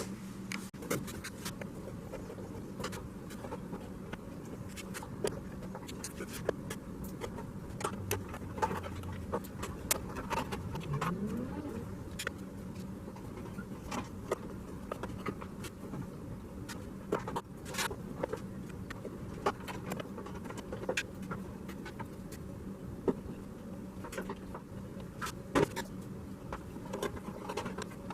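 Scattered small clicks and knocks of plastic parts and wiring connectors being handled as a bulb wiring harness is unplugged from a Jeep fender light, over a steady low hum.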